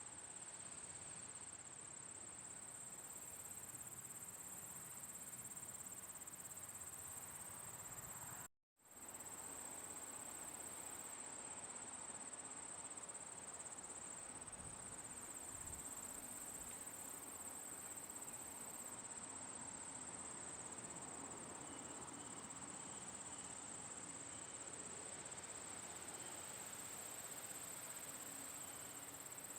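Crickets chirping in a steady high-pitched trill, with a brief cut to silence about eight and a half seconds in.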